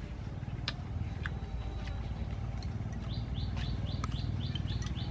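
A small bird calling a rapid, regular series of short high chirps, about four a second, starting about three seconds in, over a steady low outdoor rumble with a few faint clicks.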